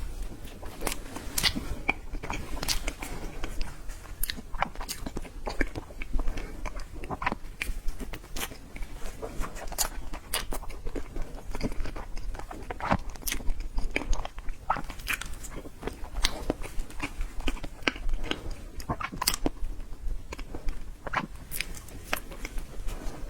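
Close-miked eating sounds of a person biting and chewing dessert: a dense, irregular run of sharp mouth clicks and smacks.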